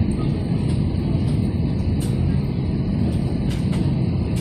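Steady low vehicle rumble heard from inside, with a few faint light clicks.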